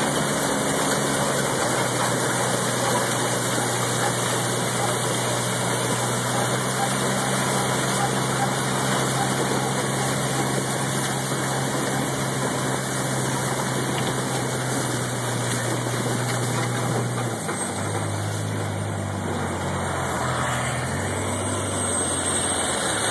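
A vehicle engine running steadily under a loud, even rushing noise, its hum dropping a little in pitch about seventeen seconds in.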